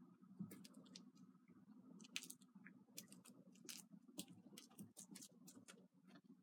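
Faint, irregular clicks and scratchy taps from a cat playing with a toy mouse on a rug, over a faint steady low hum.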